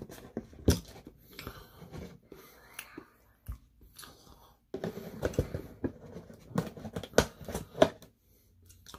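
Close-up chewing and crunching of fried chicken: irregular crisp crackles and mouth clicks, busier in the second half.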